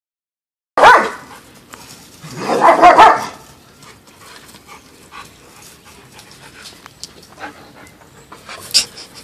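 Dogs playing: a loud bark about a second in, then a longer burst of several barks around three seconds in, followed by quieter panting and a short sharp sound near the end.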